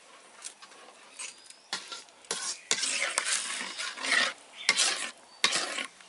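Metal spoon scraping round an aluminium pan as it stirs thin wheat-flour halwa batter, in repeated strokes starting about two seconds in. The batter is kept moving constantly so it does not stick to the bottom.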